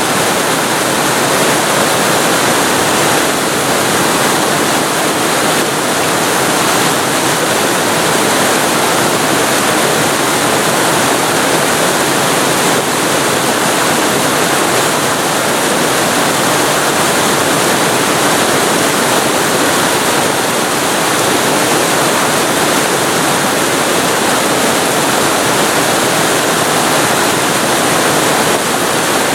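Waterfall recorded very close to the falling water: a loud, steady rush of water with no breaks or other sounds.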